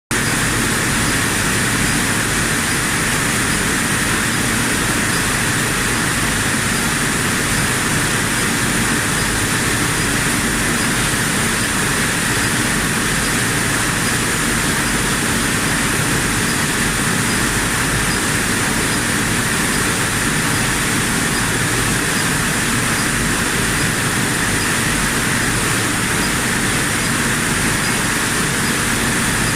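Rice-packing machine for 5 kg sacks running with a steady, unbroken mechanical noise.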